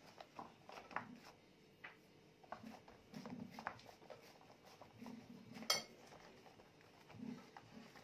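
Faint rustling and light tapping of a plastic dough mat as a hand presses and smooths it over basbousa batter in a baking tray, with one sharper clink a little before six seconds in.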